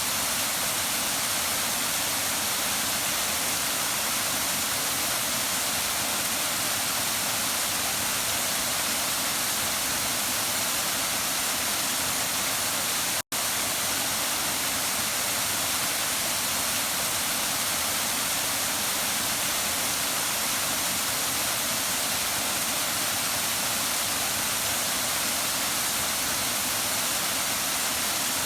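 Waterfall rushing: a steady, even hiss of falling water, strongest in the high end. About halfway through it drops out to silence for a split second and comes straight back.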